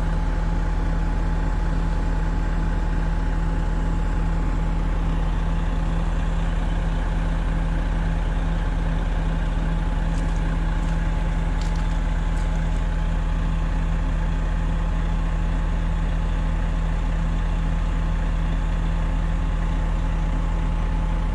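Heavy-equipment diesel engines idling steadily, an even deep drone that does not change.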